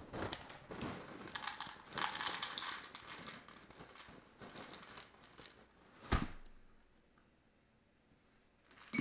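Cereal pouch crinkling and cereal pieces rattling into a plastic measuring cup as a serving is measured out, with a single thump about six seconds in.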